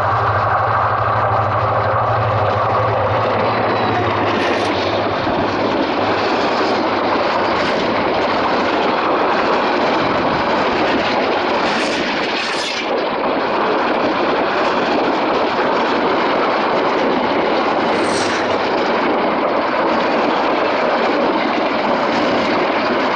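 Diesel locomotive's engine drone as it comes past at close range, fading after about five seconds into the steady loud rush of passenger coaches' wheels running on the rails at speed, with a few brief high-pitched squeals along the way.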